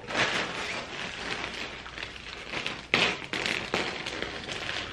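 Plastic mailer bag crinkling and rustling as it is pulled and stretched in an attempt to tear it open, with a sharper crackle about three seconds in.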